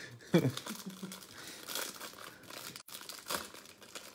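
Rustling and crinkling of trading cards and their plastic wrappers being handled. A short falling tone sounds about half a second in.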